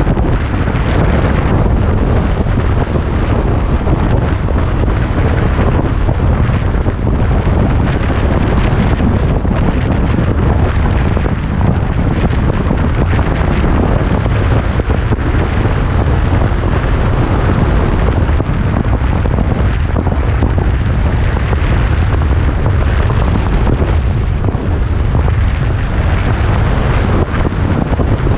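Heavy wind buffeting the microphone of a motorcycle cruising at highway speed, with the steady low drone of the engine and road underneath it.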